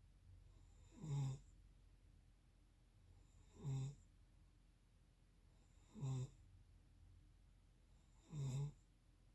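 Snoring in sleep: four short snores, evenly spaced about two and a half seconds apart, each lasting about half a second.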